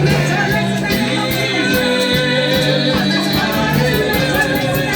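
Upbeat gospel praise music with a steady percussion beat and bass, with some singing.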